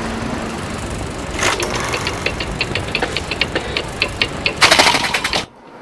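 Title-card sound effect: a steady noisy bed, a swish about a second and a half in, then even clicking about four times a second, closing with a loud burst of noise that cuts off suddenly.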